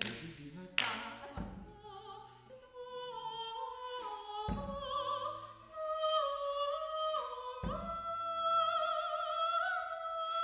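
Soprano singing long held notes with vibrato, climbing in steps, over sparse drum strokes: two sharp bright hits near the start, then deep drum hits about every three seconds.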